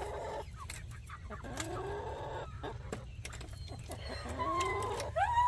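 Chickens clucking in the coop, with several drawn-out rising calls one after another.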